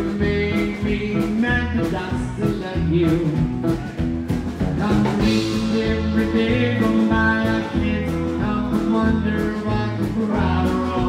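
Rockabilly band playing live: electric guitar, acoustic guitar, upright bass and drums, with a steady drum beat.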